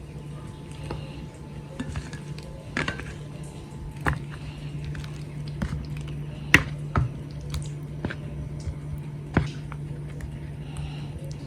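Kitchen utensils and dishes being handled while preparing fried bananas: scattered clinks and knocks, the sharpest about halfway through, over a steady low hum.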